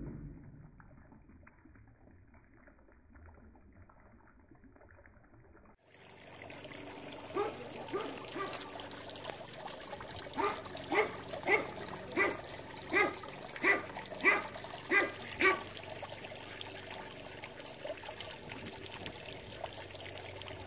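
Faint, muffled audio of the slowed-down frog footage for the first six seconds, then a garden pond fountain trickling and splashing steadily. In the middle comes a run of about a dozen short pitched animal calls, roughly one every two-thirds of a second, growing louder.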